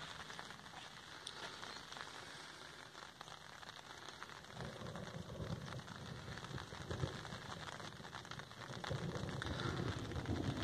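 Light rain falling on an umbrella held over the camera: a fine, even patter of drops. A low rumbling swells up about halfway through and again near the end.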